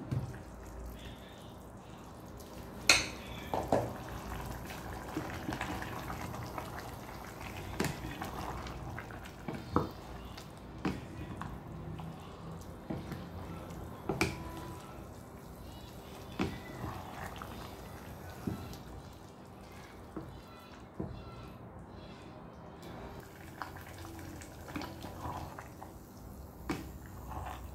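Covered pot of chicken sotanghon noodle soup simmering on low heat: a steady low background with scattered sharp pops and clicks from the bubbling liquid.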